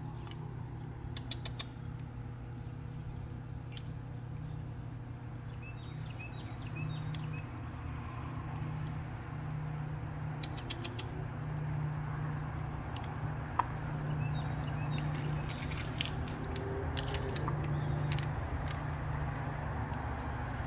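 Small clicks and crinkles from cat treat packaging being handled and torn open, in scattered clusters over a steady low hum.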